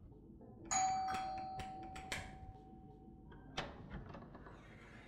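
Doorbell ringing once, about a second in, its tone dying away over a couple of seconds; a sharp click of the door latch follows as the door is opened.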